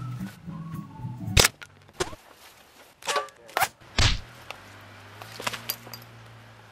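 A series of about five sharp, shot-like bangs over some three seconds. The first is the loudest, about a second and a half in, and cuts off a low droning music bed. A low steady hum follows the last bang.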